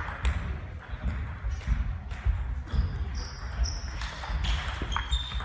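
Table tennis rally: the small plastic ball clicking sharply off the rackets and the table, with a few short, high shoe squeaks on the hall floor about three and five seconds in.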